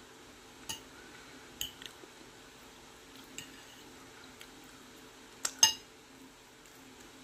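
A metal fork clinking and scraping on a plate several times, loudest as two quick clinks about five and a half seconds in, over a faint steady hum.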